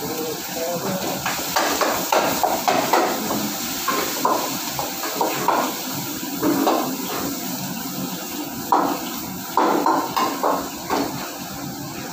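Metal ladle clanging and scraping in a steel wok, irregular strikes with a short ring, over a steady background hiss.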